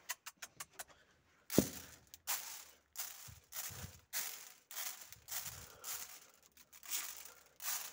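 Pigeon feed grain being scattered by hand onto a plywood board: a few light clicks, then a run of short rustling swishes about one every half second.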